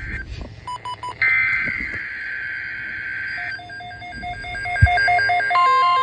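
Midland NOAA weather radio sounding its alert alarm: a few short electronic beeps, a steady high-pitched tone, then a fast two-note alternating beep. A steady alarm tone joins in near the end. The alarm announces an incoming severe thunderstorm watch.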